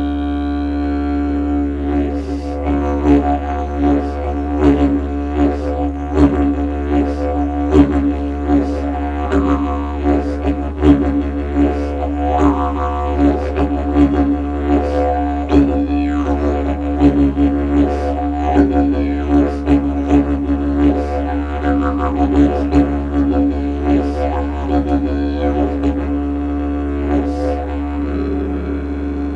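Hempstone hemp didgeridoo played as a continuous low drone, with a rhythmic pattern of accents and shifting vowel-like overtones coming in about two seconds in.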